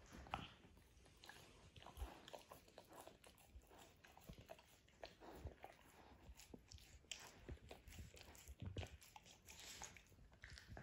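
Puppy chewing and gnawing on a rawhide bone: faint, irregular crunching and clicking bites with wet mouth sounds.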